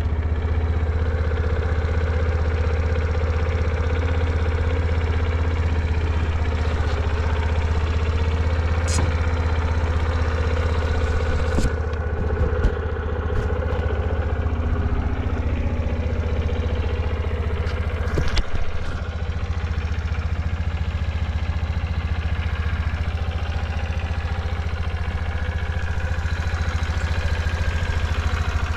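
Suzuki GS50's 50cc air-cooled four-stroke single-cylinder engine running steadily, with a few sharp clicks a third of the way in and again later. The seller calls it a quiet engine with no abnormal noise.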